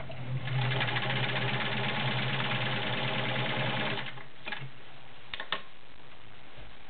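Kenmore 1750 sewing machine with its 1.2 amp motor stitching through three layers of leather, running fast and steady for about three and a half seconds and then stopping, followed by a few sharp clicks.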